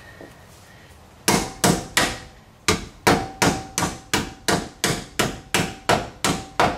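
Hammer blows driving a new axle seal into the end of a Ford 8.8 rear axle housing: a steady train of sharp strikes, about three a second with a brief pause after the first three, each with a short metallic ring. The strikes start about a second in.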